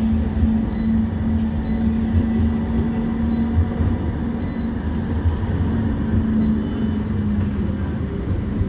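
A CAF Urbos 3 tram in motion, heard from inside the passenger saloon: a steady running rumble, with a steady hum from the traction equipment that weakens about seven seconds in.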